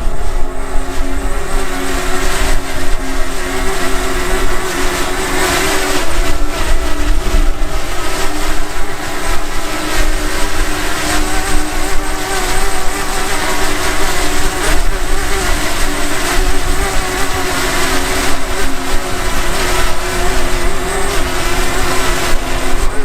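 DJI Mavic Mini's propellers whining steadily, the pitch wobbling slightly as the motors hold the drone against gusty wind. A heavy rumble of wind buffets the microphone throughout.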